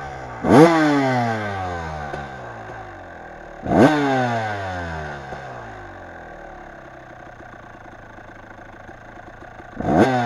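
Kawasaki dirt bike engine being ridden, blipped to high revs three times: about half a second in, near four seconds and again near the end. After each sharp rise the revs fall away slowly as the throttle is rolled off.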